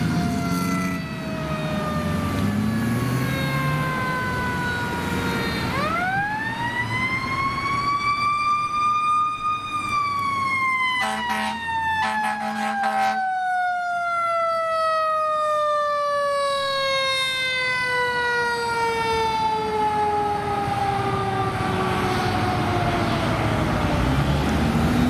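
Fire engine siren on a responding fire truck: its pitch climbs steeply for a few seconds, then falls slowly and steadily for over ten seconds. Two short horn blasts sound about halfway through.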